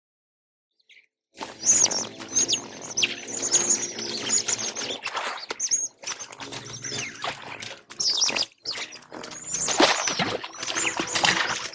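Compsognathus creature sound effects: many overlapping high, quick chirps and squeaks, each falling in pitch, starting about a second and a half in after a silence.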